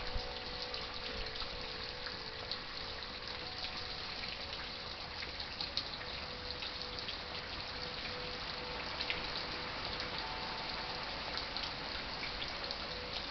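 Steady rain, with many small drop hits, and the long ringing tones of chimes that fade and come back around the middle.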